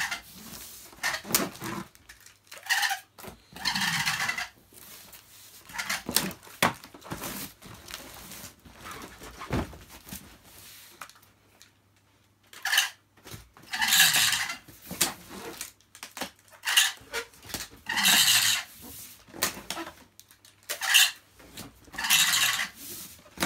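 Packing tape being run off a hand-held tape gun onto a cardboard box: a dozen or so noisy strips, each under a second, with knocks and clicks from the dispenser and box between them, and a lull of a couple of seconds around the middle.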